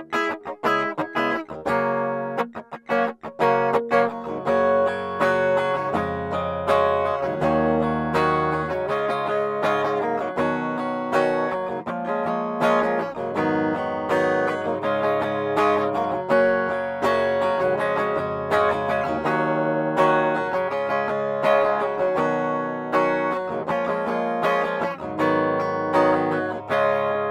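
Schecter C-1 Hellraiser electric guitar played clean on its bridge pickup: a few short, choppy chord strums with sharp stops in the first few seconds, then ringing chords and picked melody lines.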